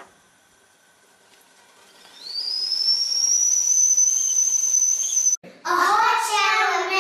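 Stovetop kettle whistling at the boil: a high whistle comes in about two seconds in, rises in pitch, then holds steady before cutting off suddenly. Children's voices shouting follow near the end.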